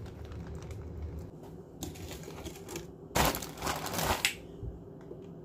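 Zip-top plastic bag crinkling and rustling as chicken pieces are shaken and worked in dry seasoning inside it, with the loudest rustling about three to four seconds in.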